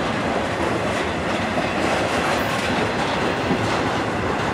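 Intermodal container freight train rolling past: a steady, unbroken noise of steel wheels and car trucks running on the rails.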